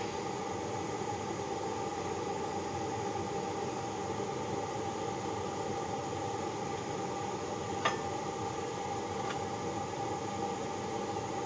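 Steady droning hiss of shop equipment around the Babbitt melting pots, with one sharp metallic click about eight seconds in and a faint second click just after, as metal taps on the connecting-rod pouring jig.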